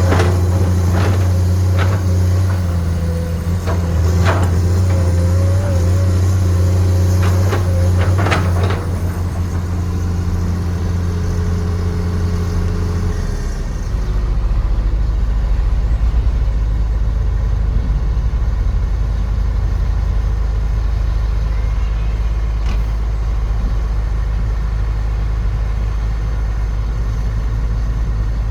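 Excavator engine running steadily under working load, with a wavering hydraulic whine and several sharp knocks over the first nine seconds or so. About 13 seconds in, the engine note drops lower and runs on evenly.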